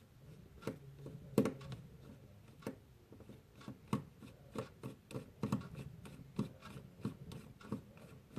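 Irregular small clicks and light scrapes of a 000 Phillips precision screwdriver and fingers working the tiny internal screws of a Fitbit Blaze smartwatch, with a louder tap about one and a half seconds in.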